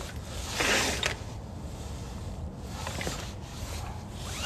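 Handling noise: a brief scraping rush about half a second in, then a few light knocks, over a steady low rumble.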